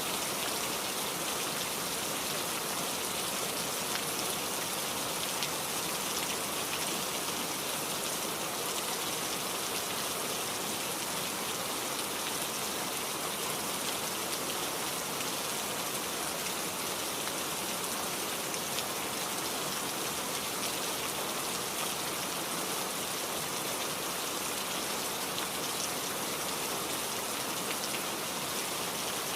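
Heavy rain falling steadily, a dense even hiss with many fine drop ticks that holds without a break.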